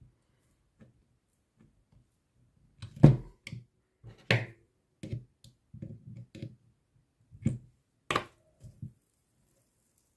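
Hand tools and a screwdriver being handled on a work surface: a few sharp clicks, the loudest about three seconds in, among soft knocks and rustles.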